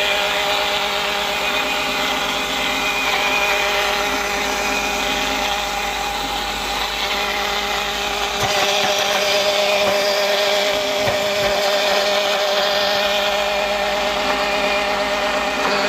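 Electric grinder motor running steadily under load, with a sudden knock about eight and a half seconds in after which the low hum drops away.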